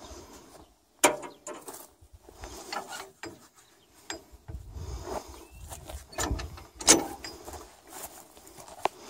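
Scattered metal clanks and knocks as a tractor implement's hitch linkage and pins are handled. The sharpest knocks come about a second in and again near seven seconds.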